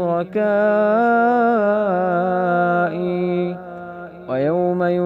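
A man chanting Quran recitation (tilawa) in a slow melodic style, drawing out one long phrase with slow turns in pitch. The phrase fades about four seconds in, and a new rising phrase begins near the end.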